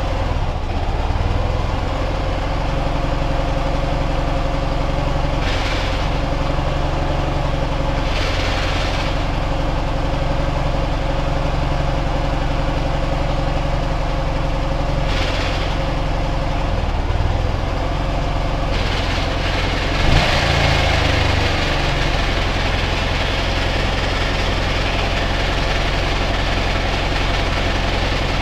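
Ural motorcycle's flat-twin engine idling steadily, with a single brief knock about twenty seconds in, after which the sound turns noisier.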